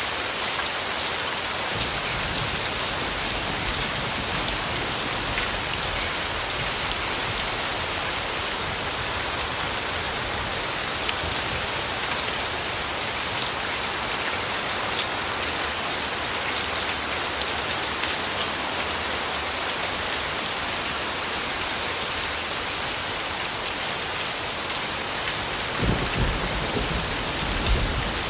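Steady rain falling in an even hiss, with a low rumble of thunder rising near the end.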